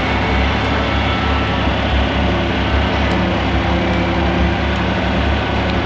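John Deere 1020 tractor's three-cylinder gasoline engine running steadily under way as the tractor drives across a field. It is running smoothly with no stalling, now that its electrical fault has been fixed.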